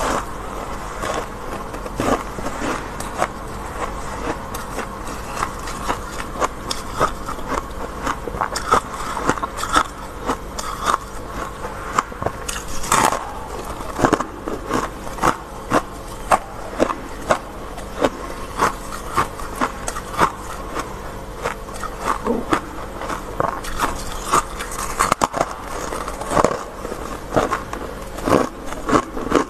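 Freezer frost being scraped off by hand and bitten and chewed: a dense run of crisp crunching and crackling, with a few louder bites.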